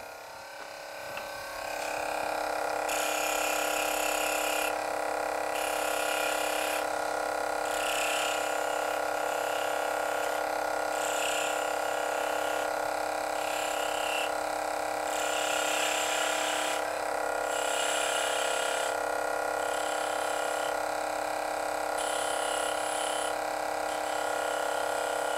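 Axminster Precision Pro pen lathe's 375 W brushed motor running with a steady whine while a chisel takes short cuts into a spinning half-inch dowel. Each cut gives a brief hissing scrape, about every two seconds. A light rattle comes from the long dowel turning in the hollow headstock.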